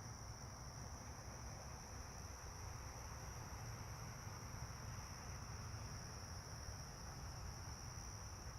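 Steady high-pitched trilling of crickets in a night-time insect chorus, over a faint low background hiss.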